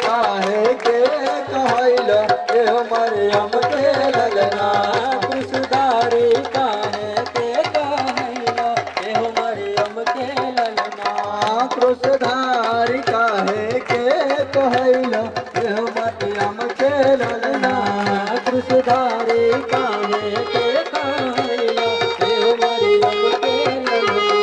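Instrumental passage of a Bhojpuri devotional song: a hand drum keeps a steady beat under a wavering melody line.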